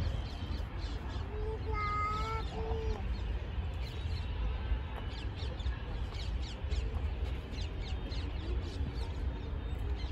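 Birds calling and chirping: a drawn-out call about two seconds in, then many quick high chirps in the second half, over a low steady rumble.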